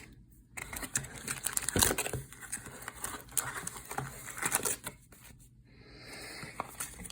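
Trading card packs and their box packaging being handled: irregular crinkling, rustling and light clicks of wrappers and cardboard, with two short pauses.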